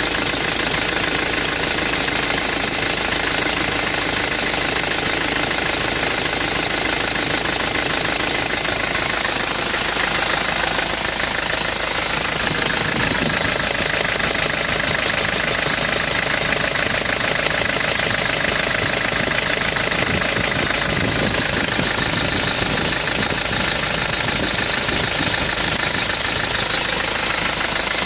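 Nissan Navara D22 engine running steadily, the truck whose owner suspects a failing timing chain or big-end bearing.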